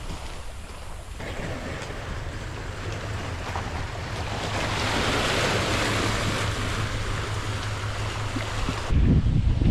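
Sea waves washing on a shore: a hiss that swells around the middle and eases off. Near the end, wind buffets the microphone with a low rumble.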